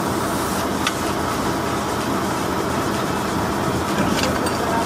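Engine running steadily at an even speed, with a couple of light clicks over it.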